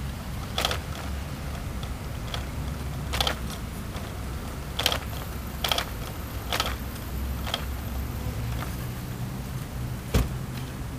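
Irregular sharp clicks and rattles from a bike-share bicycle being ridden along pavement, about seven spread unevenly over several seconds, over a low steady rumble.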